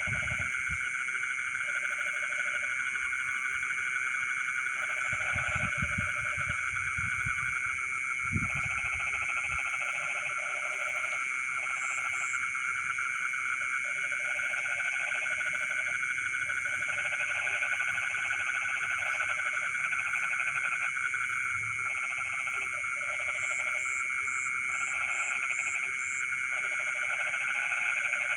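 Night chorus of frogs in a flooded rice paddy: a dense, unbroken trilling chorus with lower frog calls coming in repeated bursts of about a second. A short run of high ticks comes near the end, and a few low thumps fall in the first third.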